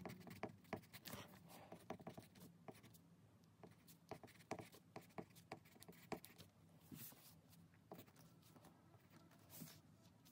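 Pencil writing on paper: faint, irregular scratches and small taps of the lead on the sheet, very quiet.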